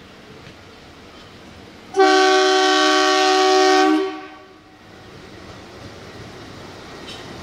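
Indian Railways diesel locomotive horn sounding one loud multi-tone blast of about two seconds, a couple of seconds in. After it, the rumble of the approaching locomotive grows slowly louder.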